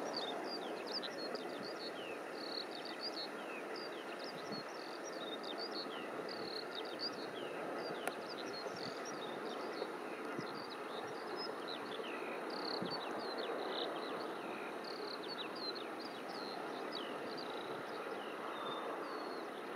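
Distant Eurofighter Typhoon's twin jet engines, a steady rumble as the jet approaches, with many small birds chirping rapidly over it.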